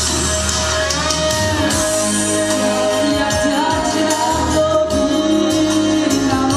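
A song with instrumental accompaniment: a sung melody over steady instrumental music, performed on stage with a microphone.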